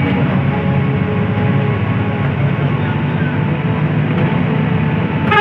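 Intercity bus under way, its engine giving a steady drone over road noise. A bus horn starts blowing right at the end.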